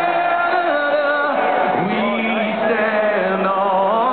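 Large stadium crowd singing together, many voices holding and sliding between long notes.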